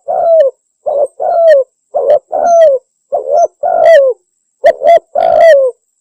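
Spotted dove (tekukur) cooing: a rhythmic run of coos, short notes alternating with longer ones that slide down in pitch, stopping just before the end. The call is played as a lure to draw wild doves in for hunting.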